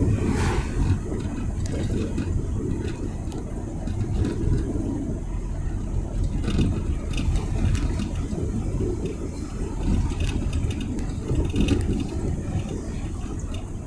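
Steady low rumble of a car driving, engine and road noise, with a few faint light ticks or rattles.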